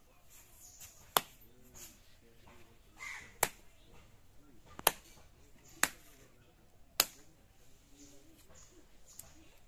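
A wooden stick knocking sharply on hard ground five times, irregularly a second or two apart, with soft scraping in between.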